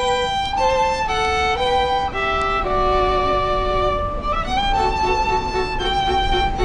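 Background music: a melody of held notes, moving to a new note every half second to a second.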